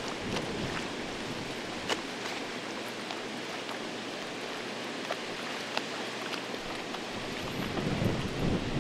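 Steady rushing of water released through the dam's gate, carrying over the river with light scattered clicks. Low wind buffeting on the microphone rises near the end.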